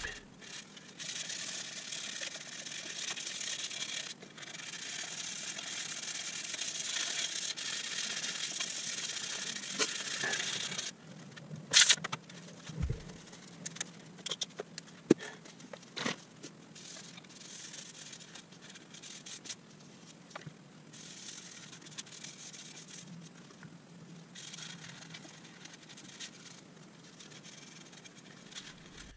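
Sandpaper rubbed by hand over the carved beech eyelet of a yarn bowl: a steady scratchy rasping for about the first eleven seconds. After that come quieter rubbing and paper crinkling, with a few sharp clicks and knocks.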